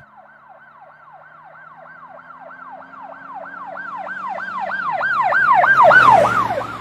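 Emergency-vehicle siren in a fast yelp, about four falling wails a second. It grows steadily louder, peaks near the end, then fades, while its lower tone dips in pitch as it passes.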